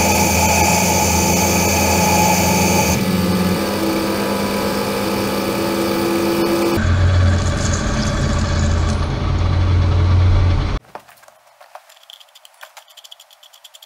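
Metal lathe running with its chuck spinning, a steady machine hum and whine, with a high whine dropping out about three seconds in. Near the end the machine sound cuts off suddenly, leaving faint clicks and taps of metal parts being handled.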